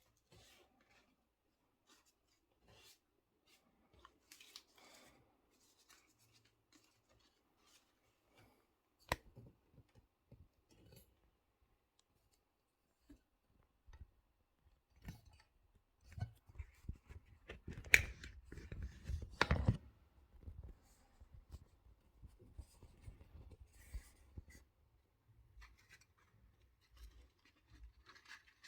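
A sheet of paper being handled and folded by hand: faint, scattered rustles, crinkles and small clicks. A louder stretch of paper handling with dull knocks against the work surface comes about two-thirds of the way through.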